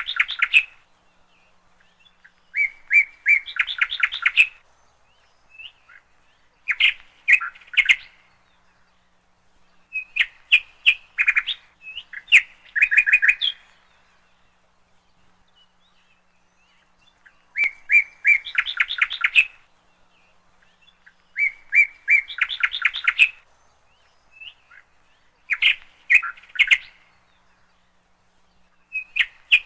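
A songbird singing: short phrases of a few clear high notes that run into a fast rattling trill, repeated every three or four seconds with brief pauses between them.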